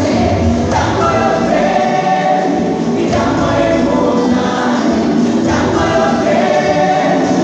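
A gospel choir singing together, many voices in long held phrases.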